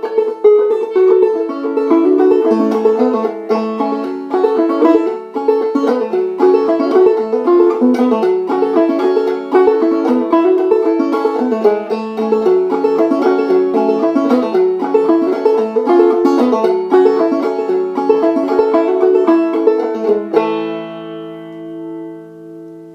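Recording King banjo played clawhammer style, picking an old-time fiddle tune at a quick, even pace. About twenty seconds in, the tune ends on a final chord that rings on and fades.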